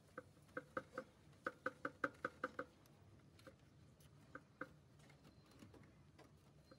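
Short, squeaky clicks from hand work on parts in a backhoe loader's engine bay during servicing. They come in a quick run of about five a second for the first two and a half seconds, then a few scattered ones near the middle.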